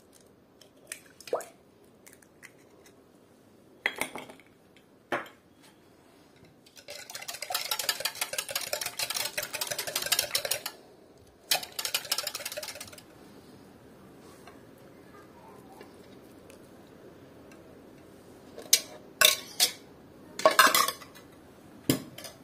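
A utensil clinking and stirring in a bowl: a few sharp taps, then several seconds of fast, rhythmic stirring in two spells, and a cluster of loud clinks near the end.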